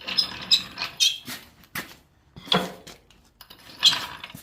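Metal tools and parts clinking and knocking, about half a dozen separate knocks spaced irregularly. The loudest comes near the end.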